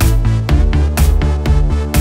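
Background electronic dance music with a steady beat, about two beats a second, over a deep bass line.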